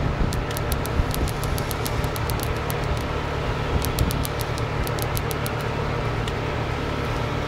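Steady low rumble of wind on an outdoor phone microphone, with a faint steady whine over it and runs of quick sharp clicks.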